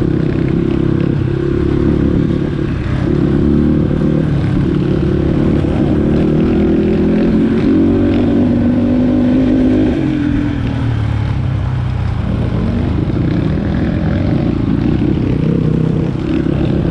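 Dirt bike engine running under changing throttle while riding a rough trail. Its pitch climbs for several seconds and drops about ten seconds in.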